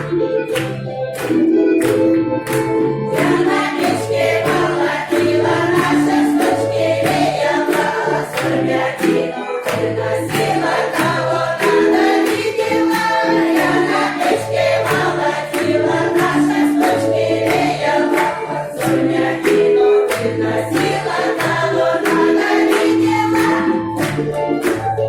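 A women's folk ensemble singing a song together in chorus, with instrumental accompaniment: a bass line repeating in a regular pattern and a steady beat of sharp percussive clicks.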